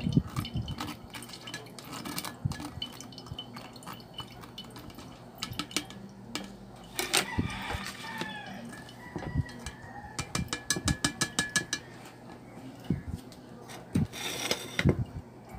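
Clinking and scraping of a utensil working blended cucumber pulp through a mesh strainer that rests on a glass pitcher, with juice dripping through. A quick, even run of clicks comes about two-thirds of the way in.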